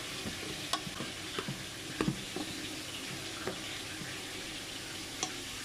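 Spoon scraping and knocking against a rice cooker's nonstick inner pot while fluffing freshly cooked rice: scattered soft clicks, a few a second apart, over a steady hiss.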